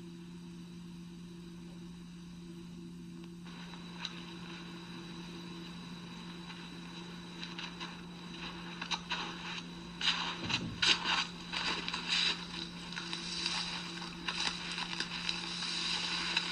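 Irregular crunching and scraping in snow, boots and spruce brush moving over the snow, growing busier from about ten seconds in, over a steady low hum.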